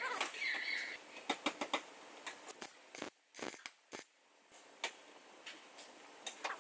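Irregular clicks, light knocks and scraping from hand work, spaced unevenly with short gaps between them.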